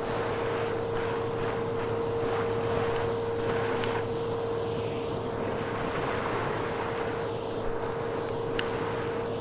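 Vacuum cleaner running with a steady motor whine. Its hose and bristle-brush attachment suck crushed blue granules off carpet, and the debris makes an irregular crunching crackle as it rushes up the hose, with a sharp click near the end.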